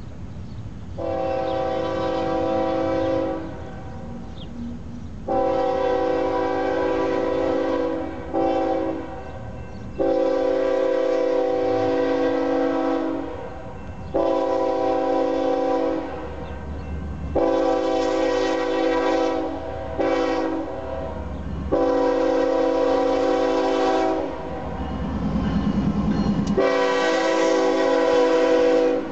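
A GE ES44AC diesel locomotive's air horn sounds the long-long-short-long grade-crossing signal twice, then starts a third long blast. Each blast is a chord of several tones. Under it, the locomotive's engine rumble grows louder near the end as the train comes close.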